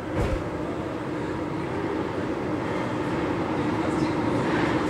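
Paris Métro train heard from inside the car as it pulls out of a station, its running noise growing steadily louder as it gathers speed. There is a brief thump just after the start.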